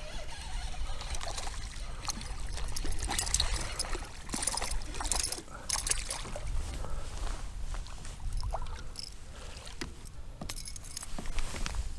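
Small knocks and clicks of fishing gear on a kayak, with light water trickling, over a steady low rumble.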